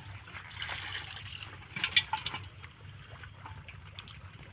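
Shallow muddy water sloshing and splashing as hands and a plastic basket move through it, with a cluster of sharper splashes about two seconds in. A low steady hum runs underneath.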